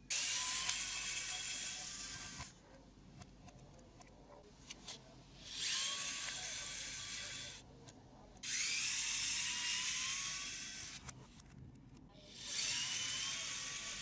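Small handheld power tool running in four bursts of about two seconds each, its motor whine rising as it spins up at the start of each burst. Faint small clicks come between the bursts.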